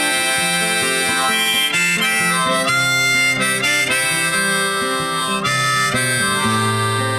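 Music: an instrumental break in a song between sung verses, with held melodic notes that move from pitch to pitch over a chordal accompaniment.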